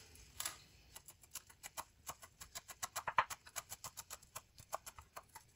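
Chef's knife chopping fresh coriander and mint on a wooden cutting board: quick, even knocks of the blade on the board, about six a second.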